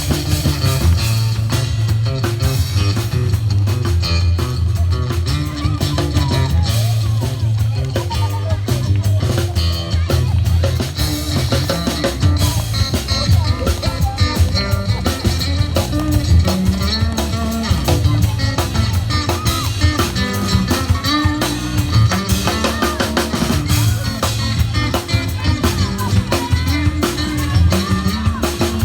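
Instrumental break of a rock song: drums keeping a steady beat under heavy bass and guitar.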